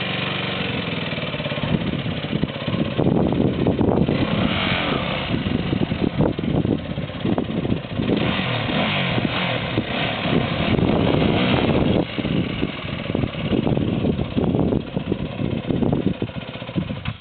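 Motorcycle engine revving hard and unevenly, rising and falling throughout, then stopping suddenly near the end.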